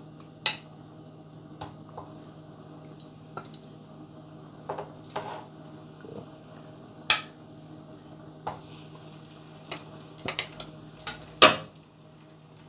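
Metal tongs clicking and clacking against a nonstick wok as flour-dusted pieces of oxtail are set into the oil for browning: about a dozen sharp clicks, the loudest about half a second in, around seven seconds and near the end. A low steady hum runs underneath.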